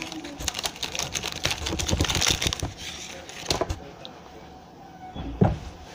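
Plastic candy-bar wrapper crinkling and crackling for about three and a half seconds, then quieter, with a single thump about five and a half seconds in.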